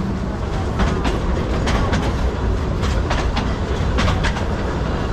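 Mocanița Huțulca narrow-gauge steam train running along the track: a steady low rumble with irregular clattering clicks from the wheels.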